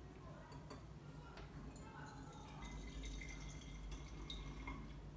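Dilute hydrogen peroxide poured from a beaker into a glass Erlenmeyer flask: a faint trickle of liquid with a few light clicks.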